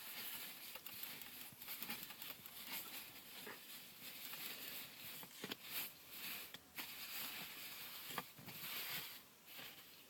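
A hamster rustling and scratching about in its cage bedding: a soft, irregular rustle with a few small clicks.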